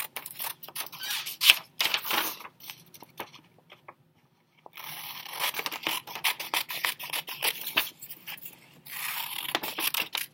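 Scissors snipping through a sheet of printer paper in a run of quick cuts, with a pause of about a second and a half midway.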